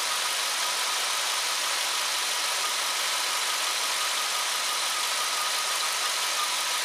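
Dodge 5.9-litre Magnum V8 gas engine idling steadily, with a faint steady whine over the running sound.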